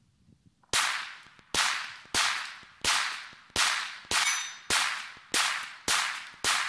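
Hi-Point C9 9mm pistol firing ten shots at a steady pace, about one every two-thirds of a second, each report fading quickly.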